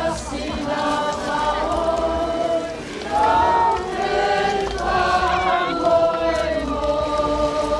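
A group of voices singing together, choir-like, with long held notes that change pitch every second or so, over a low rumble.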